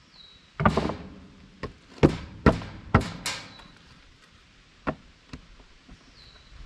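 Wooden 2x4 boards being pried and knocked apart with a hand tool: a run of sharp wooden cracks and knocks in the first three and a half seconds, the loudest about two to three seconds in, then two lighter knocks.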